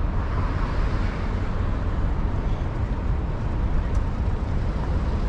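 City street traffic noise: a steady low rumble of cars on the road, with an even hiss over it.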